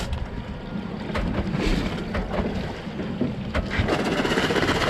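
Wind buffeting the microphone over sea water sloshing against the stern of an outboard boat, with a few sharp clicks. A hiss of water swells near the end.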